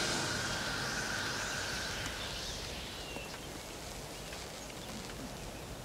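A soft, shimmering magic sound effect for the healing of a cut, a held high tone under a glittering hiss, fading away over the first two seconds or so. After it comes a quiet outdoor hush with a faint short chirp about three seconds in.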